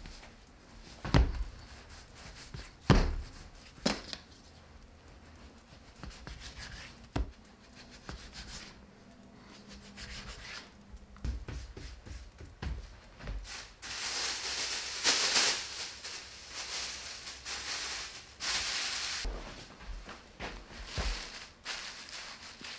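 Food-preparation handling sounds: a few sharp knocks in the first seven seconds, then several seconds of dry, hissing scraping or rubbing in the second half.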